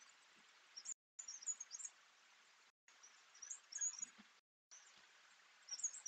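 Small woodland songbirds giving short, high chirps in several quick clusters over a steady faint hiss. The sound cuts out briefly a few times.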